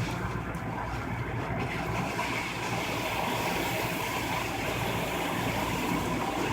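Steady road noise inside a moving car: tyres and engine running at road speed, with a hiss that grows brighter about two seconds in.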